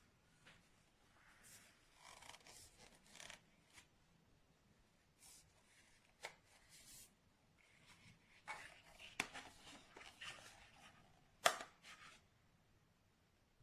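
Faint rustling and handling noises with a few sharp clicks; the loudest click comes about eleven and a half seconds in.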